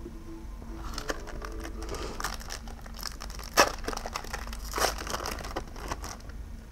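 Foil wrapper of a Pokémon booster pack crinkling and crackling as it is handled, a run of sharp crackles starting about a second in, the loudest one near the middle.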